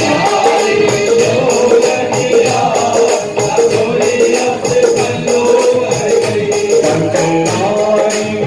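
Devotional Hindi bhajan music: a voice sings a gliding melody over a steady percussion rhythm with jingling tambourine.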